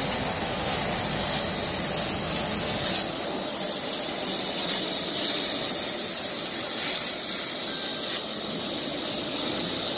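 Auto-feeding fabric laser cutting machine running while it cuts cloth: a steady hissing air noise from the machine's fans and blown air.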